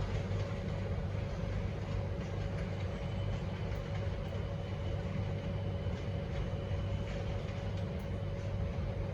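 Comeng electric train's steady low rumble and hum, with a thin, even whine over it.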